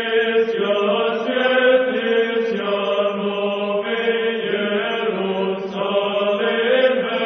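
Orthodox church chant: voices singing long, slowly changing held notes.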